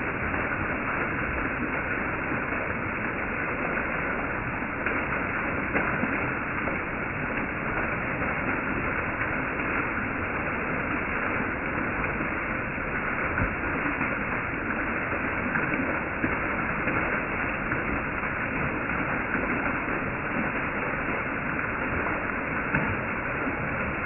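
Small waterfall splashing steadily down a rock face, a continuous dull rushing with little treble.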